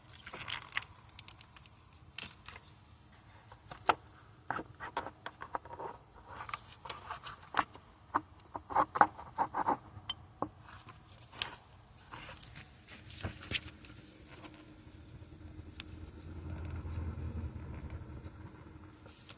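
Metal tools and parts being handled during a car repair: a run of sharp clinks, knocks and scrapes, busiest about halfway through, then a low steady hum near the end.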